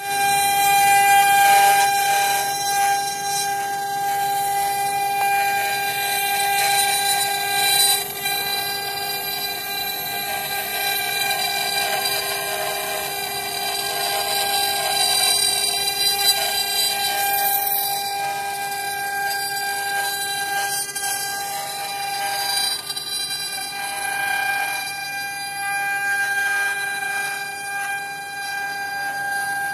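Multi-spindle four-axis CNC wood router running, its high-speed spindles giving a steady high whine while the bits carve wood, with a shifting hiss of cutting over it.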